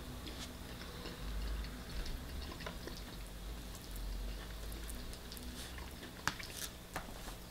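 Quiet chewing of a mouthful of shredded beef, chilli and rice, with a few faint clicks of a metal spoon scooping in a plastic food tray.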